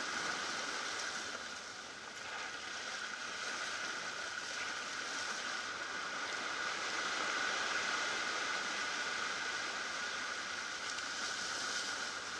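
Ocean surf washing over rocky shoreline, a steady rushing that swells and eases gently.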